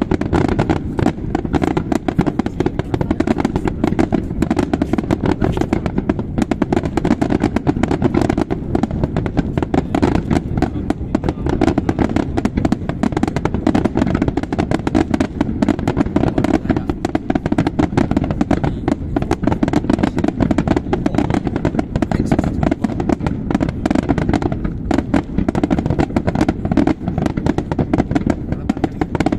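Fireworks display: a dense, unbroken barrage of aerial shells bursting and crackling, many bangs a second, heaviest in the low booms.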